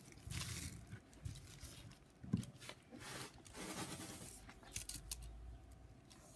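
Handling noise: a thin plastic bag rustling and light clinks from a timing chain as it is straightened by hand, with a sharper click a little over two seconds in, then a steel tape measure being pulled out and laid along the chain.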